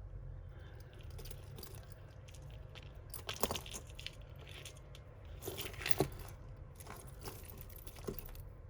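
Metal costume-jewellery chains and pendants clinking and jangling as tangled pieces are handled, with a few sharper clicks about three and a half and six seconds in, over a low steady hum.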